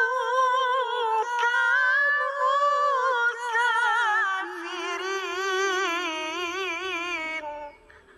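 A young male reciter chanting the Qur'an in the melodic tilawah style, holding one long ornamented phrase. The held notes quiver with a fast vibrato and step lower about halfway through. The voice stops about seven and a half seconds in, at the end of the phrase.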